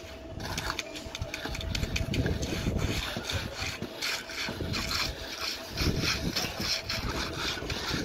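Steel hand trowel scraping and rubbing over wet concrete in quick repeated strokes as the surface is smoothed, over a low rumble and a faint steady hum.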